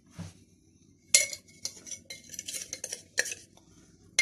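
A metal spoon clinking and tapping against a container while spices are measured out: a few sharp clinks about a second apart, with lighter tapping and rattling between.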